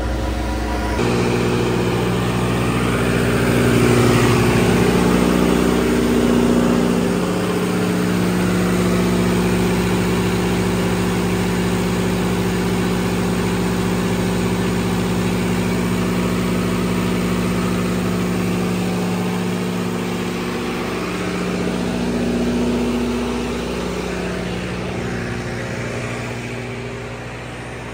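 A 60 kW standby generator's turbocharged engine runs steadily under heavy load during a load bank test. It makes an even mechanical hum that cuts off suddenly at the end.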